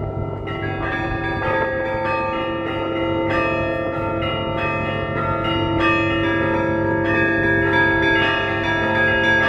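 Russian Orthodox church bells rung by hand: several bells of different pitches struck in a steady rhythm, roughly twice a second, their tones ringing on and overlapping over the low hum of a larger bell.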